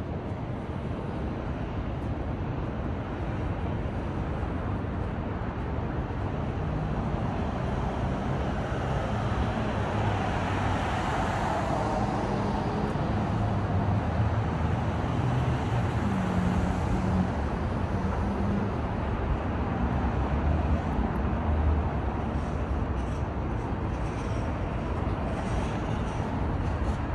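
City street traffic: a steady wash of passing cars and engine hum, with a louder vehicle swelling past in the middle and fading again.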